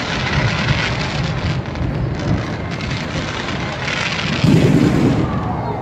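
Fireworks display going off in a dense, continuous crackling barrage with low rumbling booms, with a louder burst about four and a half seconds in.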